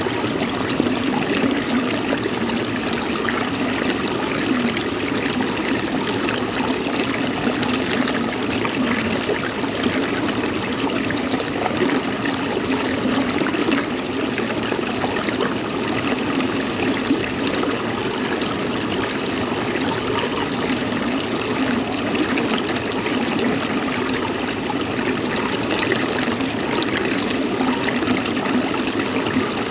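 Water running steadily, an even unbroken rush with no pauses or changes.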